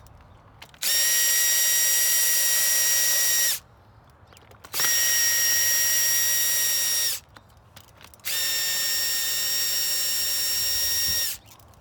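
Power drill/driver backing screws out of a patio umbrella's rib hub: three runs of a steady high whine, each about three seconds long, with short pauses between them and a slight wind-down at the end of each.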